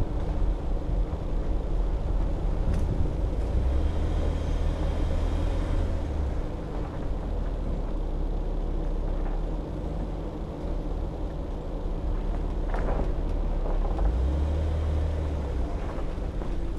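Off-road vehicle driving slowly on a rough dirt road: steady low engine drone with tyre and road noise. There are a few short knocks or rattles, and wind buffets the microphone.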